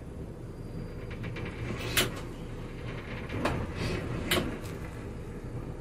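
Yacht's engines running low and steady while the boat creeps in to dock, with three short sharp clicks or knocks about two, three and a half, and four and a quarter seconds in.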